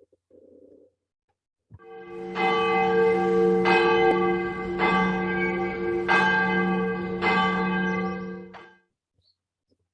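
A bell struck repeatedly, about one stroke every 1.2 seconds, its tones ringing on between strokes; it starts nearly two seconds in and stops about nine seconds in.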